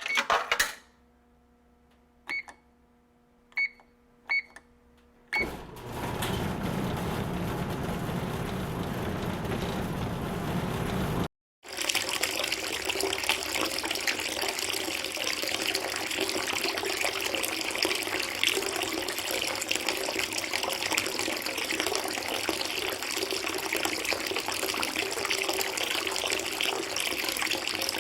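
Four short electronic beeps over a faint hum, then water running steadily from about five seconds in, cutting out for a moment near the middle before running on.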